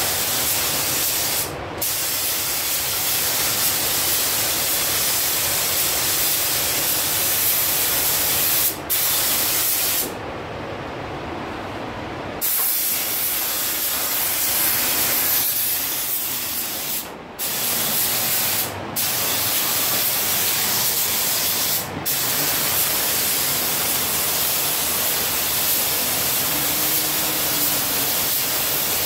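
Gravity-feed paint spray gun hissing as it sprays a car bumper, the trigger let off briefly about six times, once for about two seconds, when the hiss cuts out and a lower steady rush of air remains.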